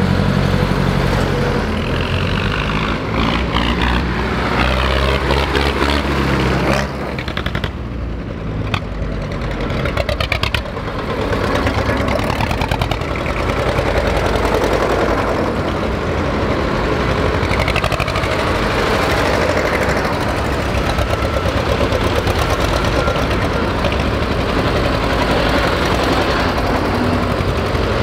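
Old diesel tractor engines chugging as tractors drive past one after another, with a rapid hard knocking exhaust beat.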